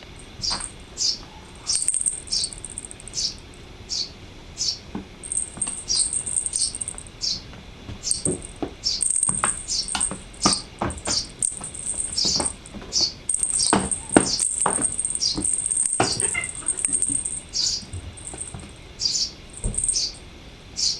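Small bird calling with short, high, falling chirps about twice a second, over a thin high trill that comes and goes. A run of sharp clicks and taps sounds in the middle.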